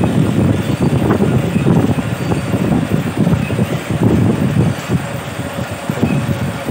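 Grass-mat weaving machine running, a loud continuous clatter of knocks, easing off a little near the end.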